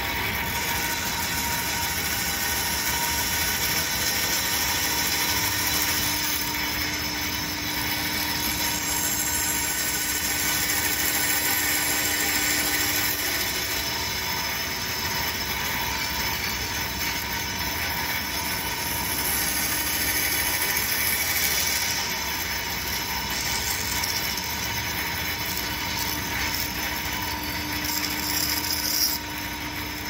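Stationary power saw running steadily while its blade cuts through a small hardwood block.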